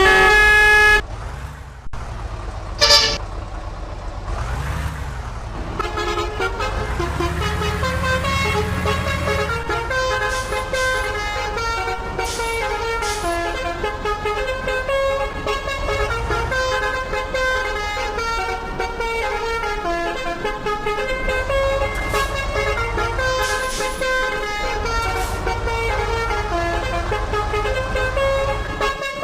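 Bus 'telolet' horn, a multi-tone musical horn, sounding a loud chord at the start, then from about six seconds in playing a tune of stepping notes over the low rumble of the bus engine.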